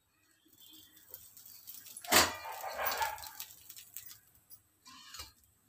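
Steel spatula scraping and knocking against a hot iron dosa tawa as a crisp dosa is worked loose and lifted. A sharp metal knock comes about two seconds in and is the loudest sound, followed by scraping, with a second shorter knock near the end.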